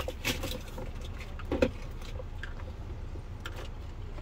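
A low steady rumble with a few faint scattered clicks and a short knock about one and a half seconds in.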